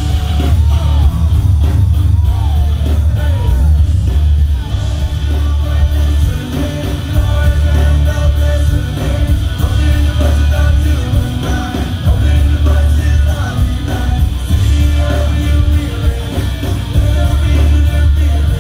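Live rock band playing loud, with heavy bass and drums under two vocalists singing into microphones.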